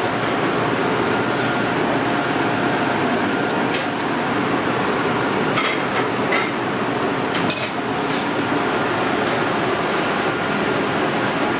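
Steady background noise of a commercial kitchen, with a few sharp metal clanks of cookware in the middle.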